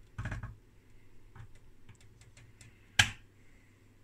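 Light clicks and taps of hands handling an open metal instrument chassis, with one sharp, louder click about three seconds in.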